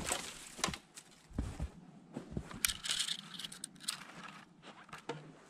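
Footsteps in shallow snow over leaf litter, with twigs and conifer branches brushing and scraping against the walker, in irregular clicks and scrapes; a longer rustle of branches comes about three seconds in.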